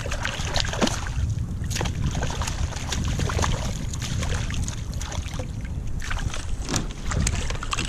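Wind rumbling on the microphone, with water splashing as a small bass thrashes at the surface beside a sit-on-top kayak, and scattered small knocks and clicks.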